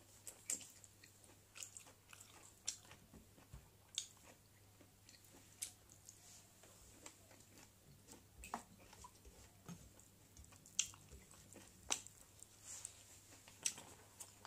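A person faintly chewing a mouthful of spicy pork, with scattered, irregular wet mouth clicks and smacks.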